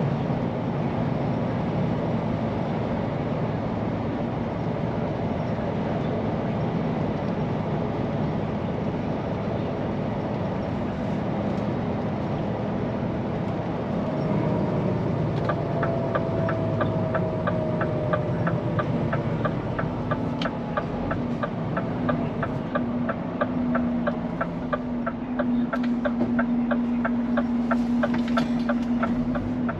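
Scania P410 truck heard from inside the cab: a steady engine and road rumble on the move. About halfway in, a regular ticking starts at about three ticks a second, like the turn-signal indicator.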